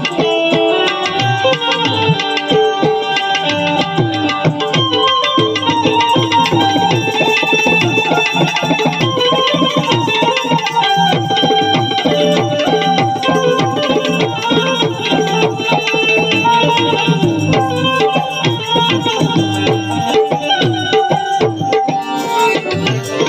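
Instrumental interlude of a Gujarati devotional bhajan: tabla playing a fast, steady rhythm under a sustained melody line, amplified through a PA system.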